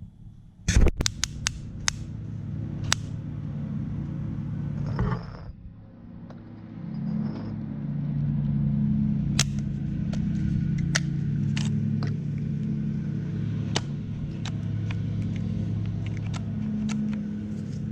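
DeWalt DCD996 brushless hammer drill running under load, drilling into brick, with scattered sharp clicks. It starts with a few knocks, stops briefly about five seconds in, then runs steadily again.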